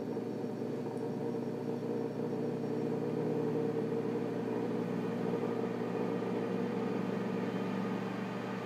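Ninja Foodi 5-quart Mini multicooker running on Air Crisp, its lid fan giving a steady, even hum.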